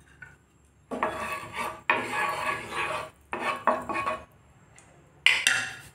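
A wooden spatula scraping around a non-stick frying pan, spreading melting ghee, in three stretches of strokes. A sharper, louder scrape or knock comes near the end.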